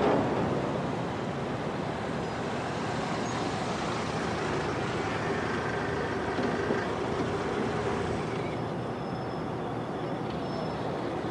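City street traffic noise: cars running and passing in a steady rush. Faint thin steady tones sound about halfway through.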